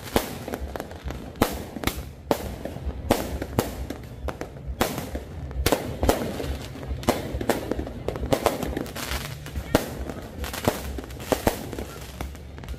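Fireworks going off: a string of sharp bangs at irregular intervals, about one or two a second, over a steady low rumble.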